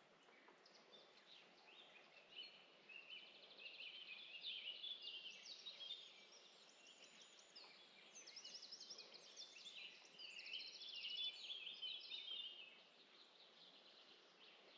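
Several small songbirds singing together: a busy mix of high chirps and quick trills that thins out and stops near the end.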